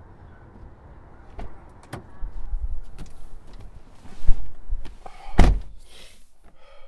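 Car door being worked: a few clicks and knocks, then the door shutting with a heavy slam about five and a half seconds in.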